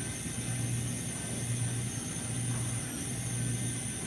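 3D printing pen's filament drive motor running, a steady hum with a faint high whine, as the pen extrudes filament.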